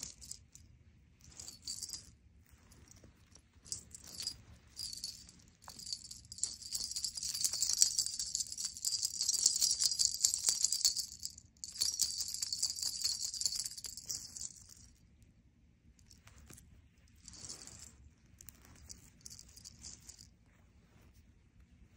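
Small jingle bell on a feather wand cat toy jingling as the wand is shaken. It comes in short spurts at first, runs almost without a break for about eight seconds in the middle with one short pause, then returns in a few brief spurts.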